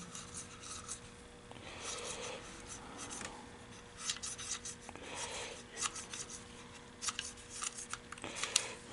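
Cotton swab scrubbing grime off an MEI bill validator, a faint scratchy rubbing in short strokes with a few light clicks and taps in the second half.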